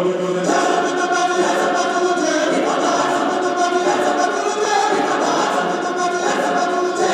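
Mixed choir of women and men singing together, holding sustained chords that change every half second or so.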